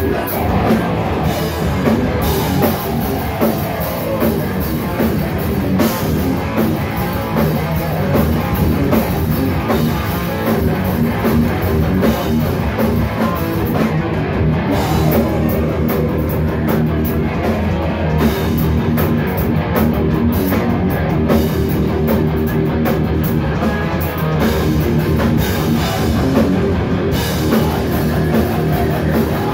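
Heavy rock band playing live at full volume: distorted electric guitars and a pounding drum kit, one song running continuously.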